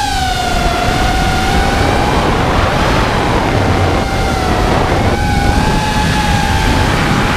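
FPV quadcopter's brushless motors whining, heard from the onboard camera, the pitch drifting slightly with throttle, over a steady rush of wind noise.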